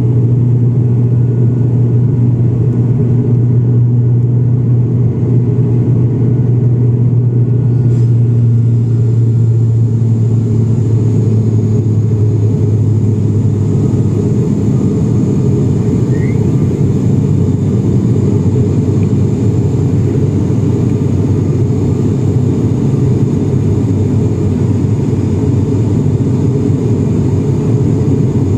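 Cabin noise of an ATR 72-600 turboprop in its climb: a loud, steady low drone from its Pratt & Whitney PW127 engines and six-bladed propellers. The steady hum in the drone fades into a broader, rougher drone about twelve seconds in.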